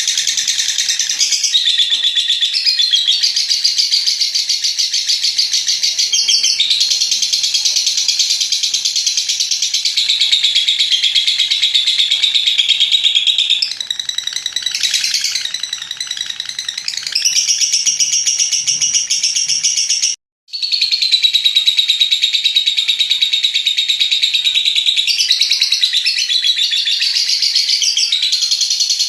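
A lovebird's long 'ngekek' chatter: fast, shrill trilling held for several seconds at a stretch, with brief breaks between runs. It cuts out suddenly for a moment about two-thirds of the way through.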